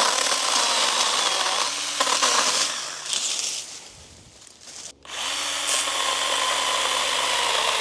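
Stihl GTA 26 battery mini chainsaw running as it cuts through old, dry gum tree branches, in two runs with a short pause about halfway. The wood is hard and old, which it doesn't like as much, but it still gets through it with ease.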